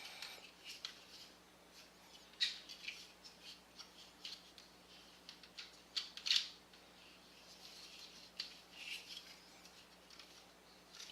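Plastic parts of a Transformers action figure clicking and rubbing as they are handled and pressed together. The sounds are faint, short and scattered, with the loudest clicks about two and a half and six seconds in.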